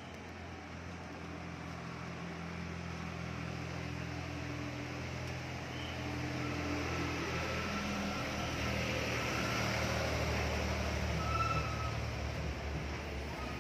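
Mahindra Bolero pickup's diesel engine idling, a low steady hum that grows slowly louder. A few faint short high-pitched tones sound in the background in the second half.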